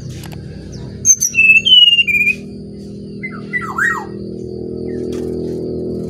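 Brown-chested jungle flycatcher (sikatan rimba dada coklat) singing: a phrase of three clear whistled notes with high chips about a second in, then short down-slurred chirps about three seconds in, over steady background music.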